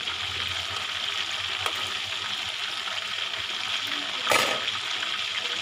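Chicken drumsticks deep-frying in hot oil in a wok: a steady sizzle with scattered pops, and one louder burst about four seconds in.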